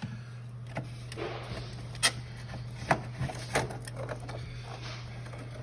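Hands working on the unplugged refrigerator's parts: a few sharp clicks and knocks, the loudest about two seconds in, over a steady low hum.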